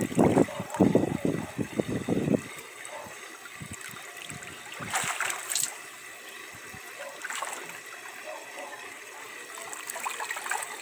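Water splashing in a tilapia tank as a hand net is worked through it, loudest in the first two seconds or so, over a steady trickle of running water with a few smaller splashes later.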